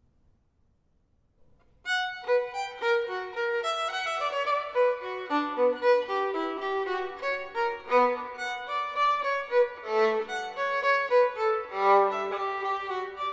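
Solo violin: after about two seconds of near silence it begins a lively passage of quick bowed notes, dipping into low notes twice near the end.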